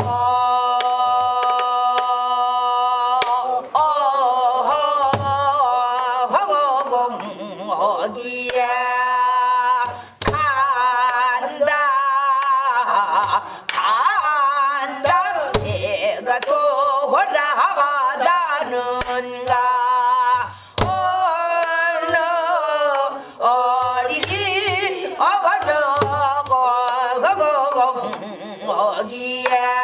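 A woman sings a Korean Namdo folk song in throaty pansori style, holding long notes with wide vibrato, to her own accompaniment on a buk barrel drum: low thumps on the drumhead and sharp stick clicks marking the beat.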